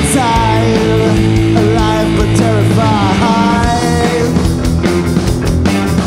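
Rock band playing live: electric bass, guitar and drum kit, with a sliding vocal line over the first few seconds. The drumming gets busier from about two-thirds of the way in.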